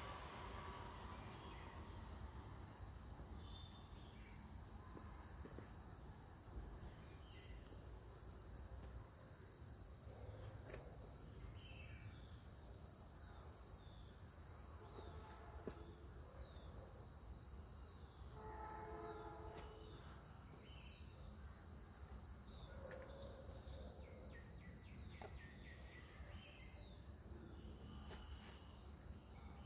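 Insects trilling steadily and faintly at a high pitch, with a few short bird chirps now and then.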